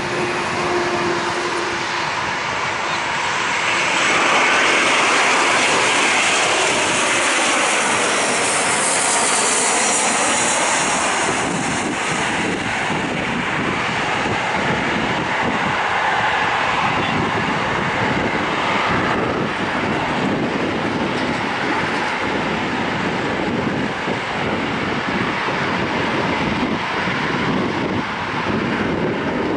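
Airbus A321 jet engines on landing: the noise swells as the airliner passes close, with a high whine and falling pitch, then a steady rush of engine and air noise as it touches down and rolls out.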